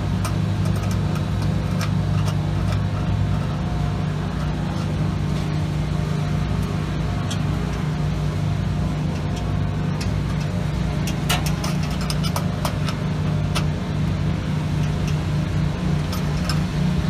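Lawn mower engines running steadily, a continuous low drone. A few light clicks come through, mostly a little after the middle.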